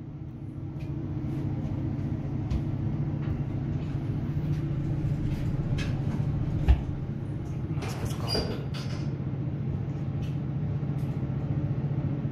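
A steady low mechanical hum with light clicks scattered through it and a single low thump about seven seconds in.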